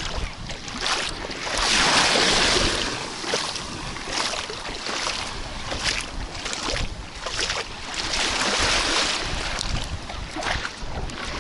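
Small sea waves washing onto the shore, swelling and fading, with wind buffeting the microphone.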